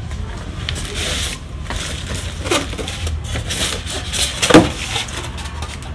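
Plastic wrapping rustling and a polystyrene foam packing end cap rubbing and squeaking as it is pulled off a new printer, with two loud squeaks falling in pitch, the louder one a little past the middle.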